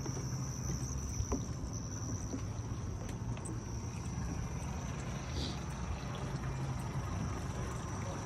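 A boat engine idling: a steady low rumble, with a thin constant high-pitched tone above it and a few light knocks, the sharpest about a second in.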